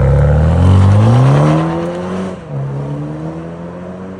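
The turbocharged four-cylinder of a 2.0 GR Supra with an FI Valvetronic exhaust, accelerating: the engine note climbs, drops at an upshift about two and a half seconds in, then climbs again.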